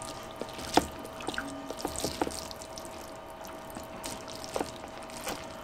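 Fork stirring and lifting saucy palabok noodles on a plate: wet, sticky sounds with scattered light clicks of the fork against the plate.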